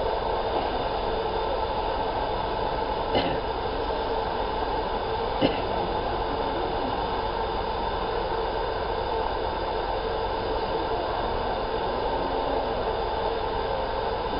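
Laser marking machine running while it marks a steel sheet: a steady hum of machine noise with a faint steady tone. Two short clicks come about 3 and 5.5 seconds in, the second the sharper.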